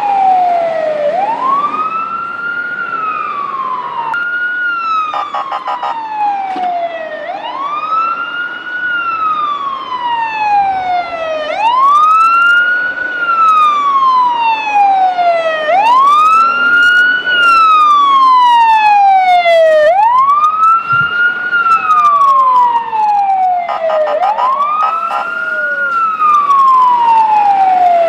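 Fire engine siren wailing. Each cycle rises quickly, then falls slowly, and repeats about every four seconds. A rapid pulsing sound joins in briefly a few times.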